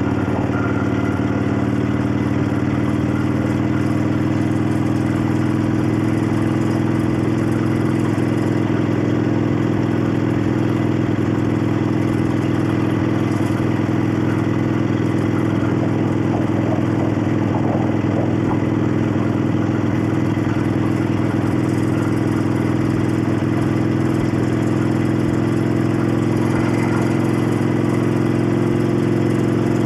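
1965 Harley-Davidson XLCH Sportster's air-cooled Ironhead V-twin running steadily with its exhaust note. The pitch rises a little over the first few seconds, then holds level.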